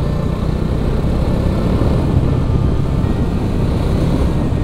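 Motorcycle running at a steady cruising speed on the road: a low engine hum mixed with steady wind and road noise.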